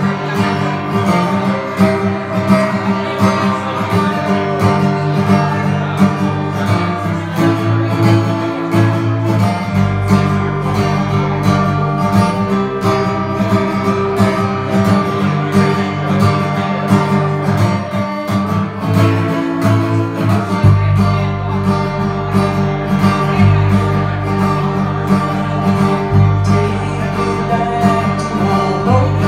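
Two guitars, one of them acoustic, playing a song together live, with steady strummed and picked chords over a moving bass line.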